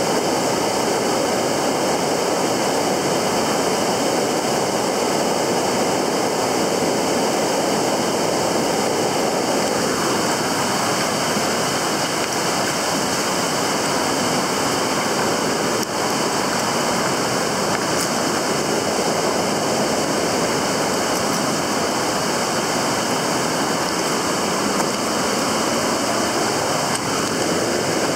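Fast-flowing stream or river water rushing steadily, a constant hiss and rumble of running water.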